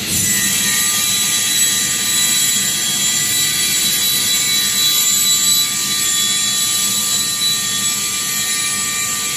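CNC panel saw's circular blade spinning at speed and cutting through plywood as the saw head travels across the board: a steady, loud high whine with a hiss of cutting over it.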